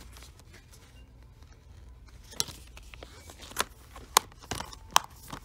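Plastic Blu-ray disc cases being handled: a few sharp, scattered clicks and knocks over the second half, the loudest two near the end.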